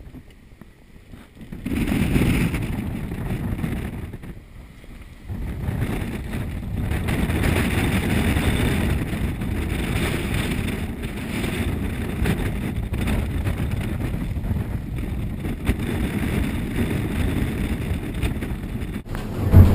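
Wind rushing over the microphone and water rushing along the hull of a sailing yacht in rough seas. Quiet for the first second and a half, then a steady rush with a short lull about four seconds in, and a loud thump right at the end.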